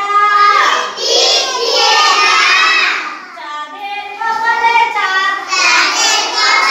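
A group of young children singing a rhyme together, in phrases with a short break about three seconds in.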